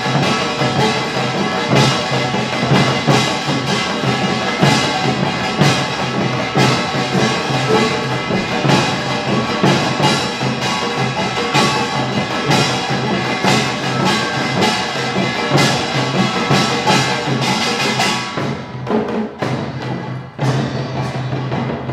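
Utdari samul nori ensemble playing: kkwaenggwari small gongs clanging over janggu hourglass drums and buk barrel drums, with a jing gong. Dense, rhythmic beating that thins out briefly near the end and then comes back.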